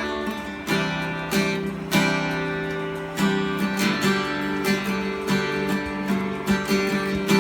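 D&D Django Jr. mahogany acoustic guitar being strummed, playing a run of chords with a fresh strum about every half second to second.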